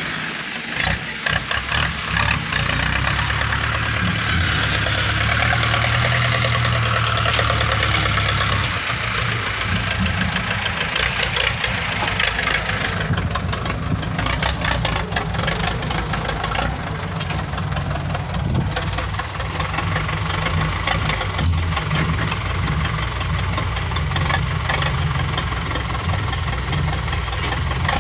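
A vehicle engine running steadily, with a rushing noise over it for about the first half.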